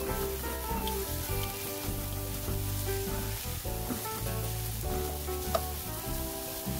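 Eggplant strips sizzling as they fry in oil in a frying pan, with a couple of sharp clicks from the tongs turning them. Background music plays throughout.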